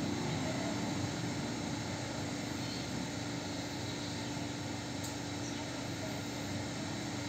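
Steady mechanical drone with a constant low hum, like a running engine or motor, unchanging throughout.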